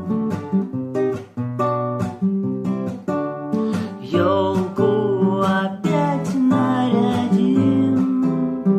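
Music: an instrumental passage of a song, with acoustic guitar picking and strumming. From about four seconds in, a wavering melody line plays over the guitar.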